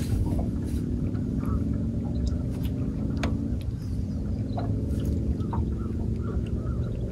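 Boat motor running steadily, with a slight change in pitch about three and a half seconds in.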